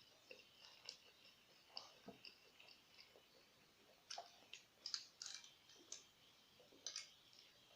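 Faint wet mouth clicks and smacks of someone chewing food: scattered short ticks, bunched about four to five seconds in and again near the end.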